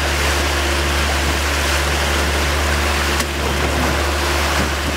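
Small fishing boat under way: the engine's steady low drone under a constant rush of water from the hull and wake. A single sharp click about three seconds in.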